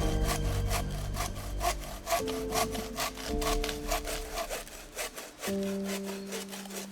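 Hand saw cutting through wood in quick, even back-and-forth strokes, about four a second, with background music underneath.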